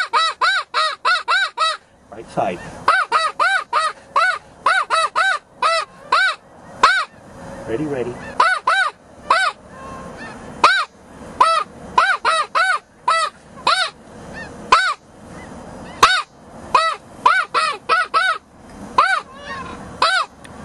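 Snow goose call blown in long runs of short, high honks, each rising and falling in pitch. They come about three a second at first and slow to about two a second later.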